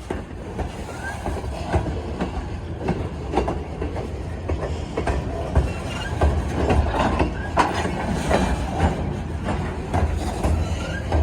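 Freight train rolling past, its wheels clicking and clanking irregularly over the rail joints above a steady low rumble, growing louder over the first couple of seconds.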